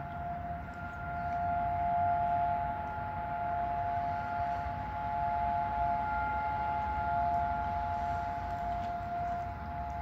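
Warning siren sounding a steady alert, a few pitches held together without rising or falling, over a low rumble.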